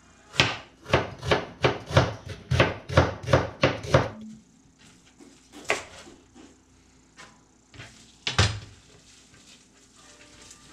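Kitchen knife chopping on a wooden cutting board: a quick run of about a dozen even chops, roughly three a second, then two single chops later on.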